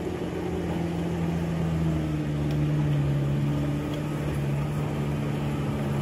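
An off-road SUV's engine running steadily under load as it crawls up a muddy, rutted track, its pitch dropping a little about halfway through.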